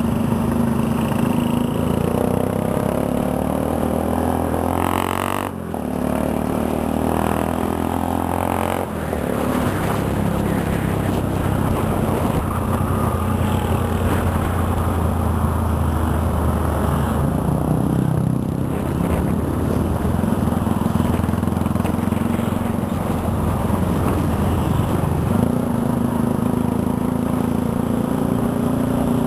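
Motorcycle engine running under way. Its note climbs and breaks off twice, about five and nine seconds in, then holds steady and rises again near the end.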